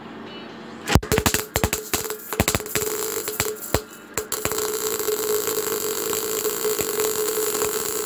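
MIG welder arc-welding steel plate. About a second in it strikes with irregular crackles and pops that stop and restart. From about four seconds in it settles into a steady, continuous crackling buzz, the arc holding now that a capacitor bank is fitted on the rectifier output.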